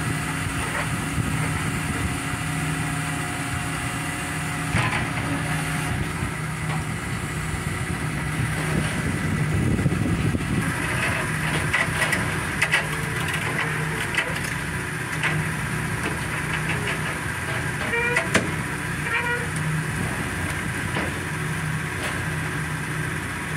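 Whole tuna being handled with a gaff hook on a metal truck bed: a few knocks and scrapes as the fish are dragged and set down, over a steady machinery hum.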